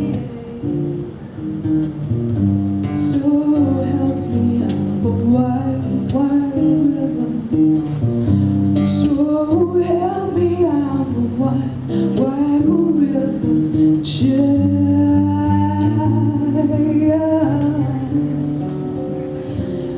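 A woman singing a folk song with acoustic guitar accompaniment, her voice gliding up and down over the steady guitar.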